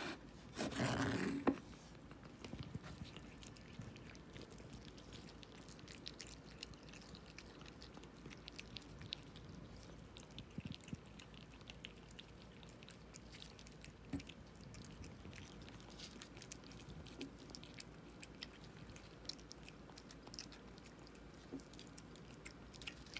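Cats eating soft wet food from small bowls: faint, quick clicks of chewing and lapping throughout, with a brief louder rustling noise about a second in.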